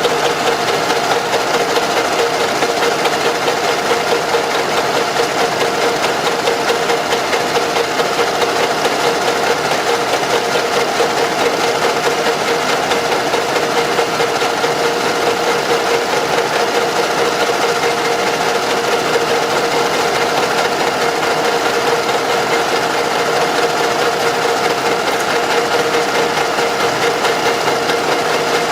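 A motor-driven machine running steadily at constant speed, with a strong even hum and a fast, even flutter.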